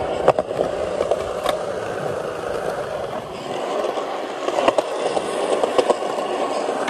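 Skateboard wheels rolling on smooth concrete: a steady rumble broken by a few sharp clicks and knocks.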